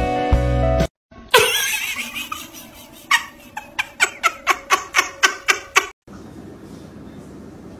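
A person bursting out laughing, then a fast, regular run of 'ha-ha-ha' at about four a second that stops abruptly about six seconds in. Before it, background music cuts off under a second in.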